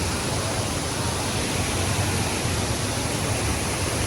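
Steady, loud rush of a large waterfall, with a deep rumble underneath.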